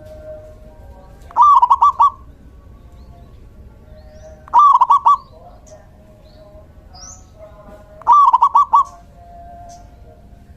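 Male zebra dove singing: three short phrases of quick, rolling coos, about three and a half seconds apart.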